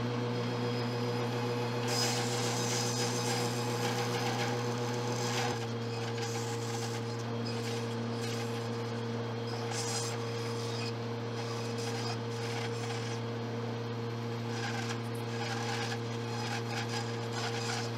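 Bandsaw running with a steady motor hum while its blade cuts a small block of butternut in a series of short cuts. The rasping hiss of the cut comes and goes, strongest from about two to five seconds in.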